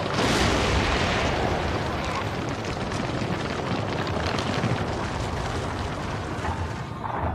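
Cartoon sound effect of huge ice spires bursting up and cracking through a building: a sudden loud burst at the start, then a long low rumble with crackling that eases off near the end.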